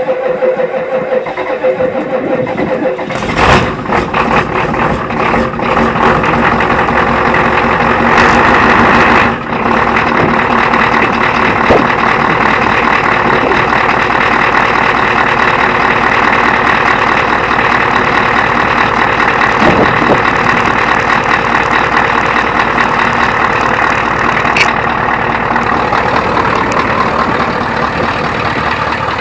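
Ford F-250 diesel engine on a cold start in freezing weather after one glow-plug cycle, running and settling into a steady idle. About three seconds in the sound changes and grows louder, and a louder stretch around the ninth second ends abruptly.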